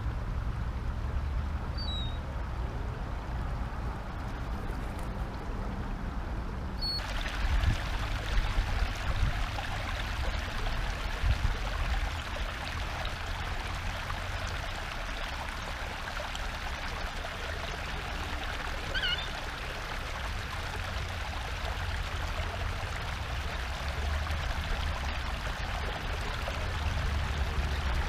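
Steady hiss of running water, starting suddenly about seven seconds in, over a low wind rumble on the microphone. A short bird chirp comes about two-thirds of the way through.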